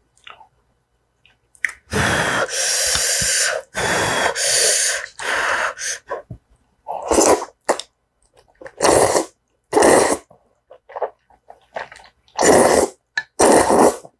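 Loud slurping of noodles in rosé tteokbokki sauce from a spoon: two long drawn slurps, then a string of shorter, quicker ones.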